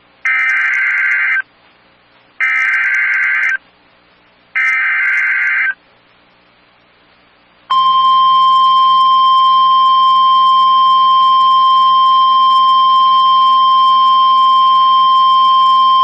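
NOAA Weather Radio Emergency Alert System activation for a severe thunderstorm warning: three short raspy bursts of the SAME digital header, each about a second long, then the steady 1050 Hz warning alarm tone, held for about nine seconds.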